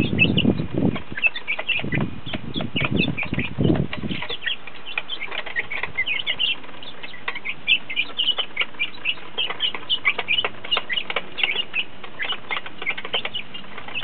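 Young Red Sex Link chickens peeping constantly in many short, high chirps while they feed at a metal trough, with scattered taps of beaks on the feeder. A low fluttering of wings and jostling bodies runs through the first four seconds, then stops.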